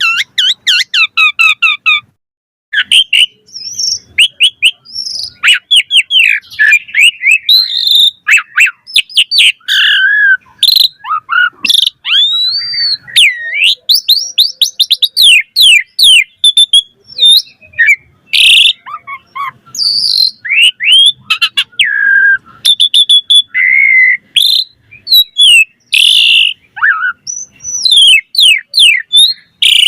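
Asian pied myna (jalak suren) singing a long, loud, varied song: slurred whistles that rise and fall, quick runs of chirps, and harsh rasping notes, one phrase after another with a short break about two seconds in.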